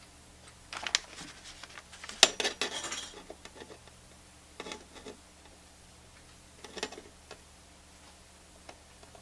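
Needle-nose pliers clicking and scraping against wire leads and the metal chassis of a tube radio as a component lead is bent over. A cluster of sharp metallic clicks and clatter comes in the first three seconds, the loudest about two seconds in, then a few scattered light clicks.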